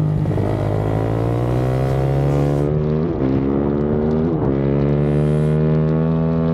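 KTM supermoto motorcycle engine pulling hard out of a corner under full throttle, its pitch climbing steadily. It dips briefly at upshifts about three seconds and four and a half seconds in, then rises again through each gear.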